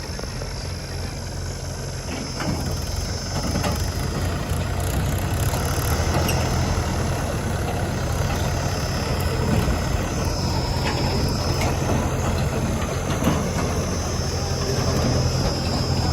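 Diesel engines of heavy farm and earthmoving machinery running steadily, getting a little louder a few seconds in.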